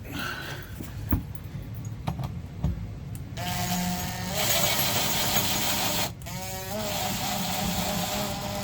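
Power drill-driver running, driving screws through shelf hardware into mollies in the wall. A steady motor whine starts about three and a half seconds in after a few handling clicks. It stops briefly past the middle, wavers in pitch as the trigger is squeezed again, then runs on.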